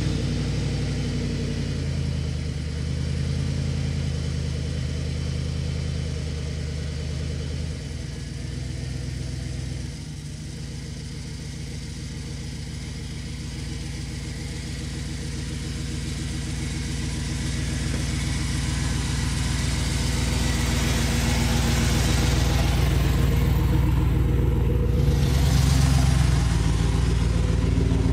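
Chevrolet Silverado pickup's engine running steadily just after starting, then the truck pulling away and driving up a dirt track, growing louder as it comes close and passes by.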